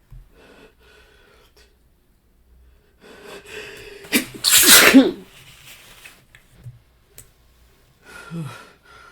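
A man's sneeze, set off by a persistent nasal tickle: a few building inhaling breaths from about three seconds in, then one loud sneeze about four seconds in, followed by quieter breathing.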